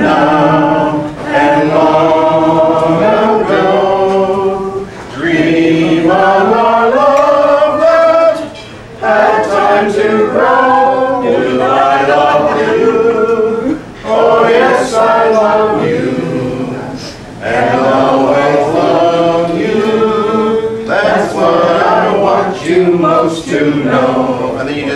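A group of people singing a song together without instruments, in sung phrases of a few seconds with brief breaks between them.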